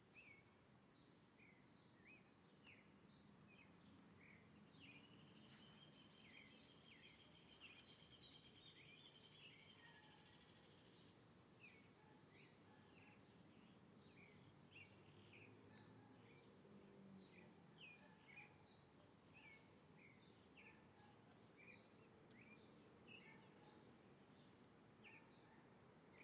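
Faint outdoor ambience with many short, scattered chirps of small birds calling in the background. A longer trill runs from about five to eleven seconds in.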